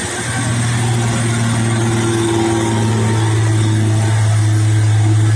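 Heavy diesel truck engine running at steady revs, a deep, even hum that holds its pitch and slowly grows louder as the truck draws nearer.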